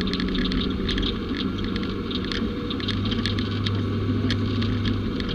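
Utility vehicle engine running steadily, with frequent irregular clicks and rattles over it, as on a rough trail.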